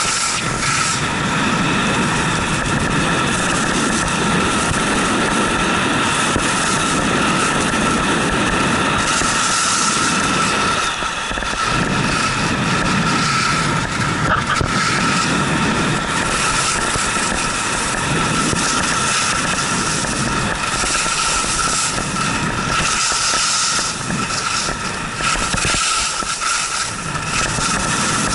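Skis scraping and chattering over hard, icy snow under a steady rushing noise. The scraping swells and fades every few seconds.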